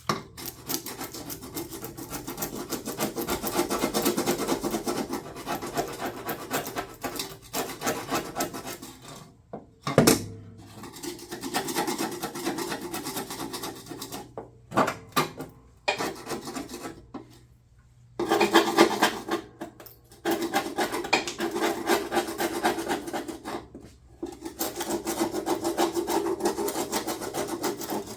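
Hand scraper scraping rust off a lawn tractor's steel, in stretches of quick rasping strokes with short pauses. A single sharp knock comes about ten seconds in.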